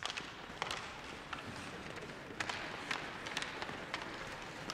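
Ice hockey play: skate blades scraping across the ice as a steady hiss, with a string of sharp, irregular clacks of sticks and puck.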